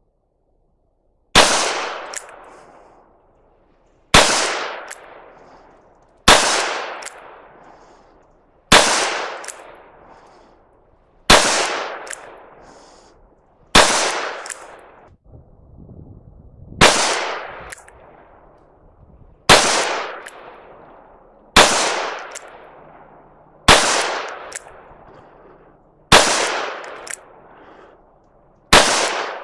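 Ruger GP100 .357 Magnum revolver firing a dozen single shots at an even pace, about one every two to three seconds. Each sharp report is followed by an echoing tail that dies away over a second or two.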